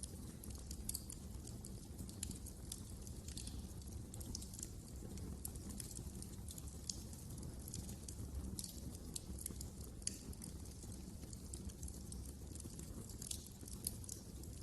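Wood fire crackling: many small, irregular pops and snaps over a steady low rumble of the flames.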